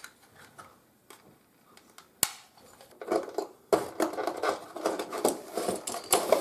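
Plastic handling noises: a single sharp click about two seconds in, then a busy run of clicking, clattering and rustling from about three seconds on.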